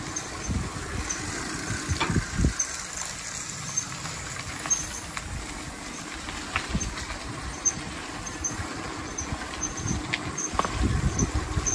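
Riding a bicycle: wind rumbling on the microphone and tyre noise on the path, with scattered small clicks and knocks from the ride.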